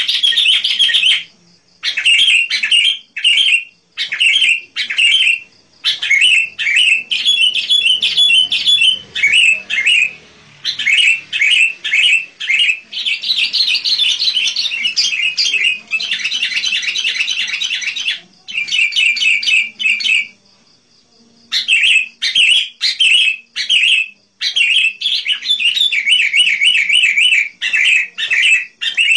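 Sooty-headed bulbul singing in quick runs of bright chirping notes, with short breaks between phrases and a pause of about a second two-thirds of the way through.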